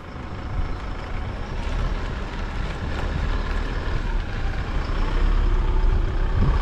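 Vantech Cordeleaves truck-based camper van driving past at low speed: engine and tyres on tarmac, growing steadily louder as it approaches, loudest about five to six seconds in.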